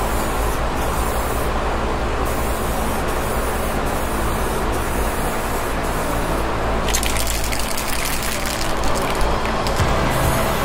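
Aerosol spray can hissing steadily as candy green paint goes on in passes, over a steady low hum. About two-thirds of the way in, the spray turns to a rapid crackle.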